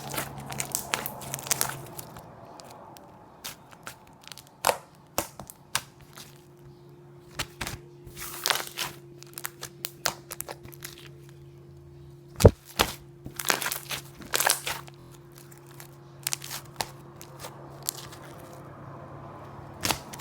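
Orange crunchy slime being squeezed and pressed by hand, giving irregular crackles, crunches and sharp pops, one especially sharp snap about halfway through.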